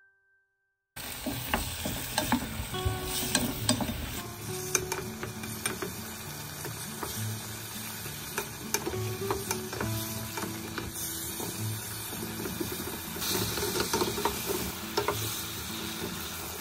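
Sliced zucchini sizzling in a hot frying pan as it is stir-fried, with the wooden spoon scraping and clicking against the pan; the sizzle starts suddenly about a second in.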